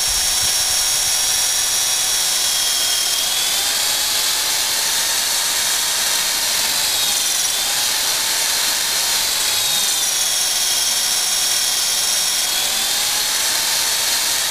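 Corded electric drill running continuously as it bores a taphole into a maple trunk for sap tapping, a steady whine whose pitch slowly wavers up and down.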